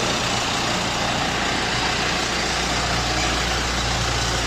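Diesel engine of a self-loading concrete mixer running steadily, a constant low engine hum with no change in speed.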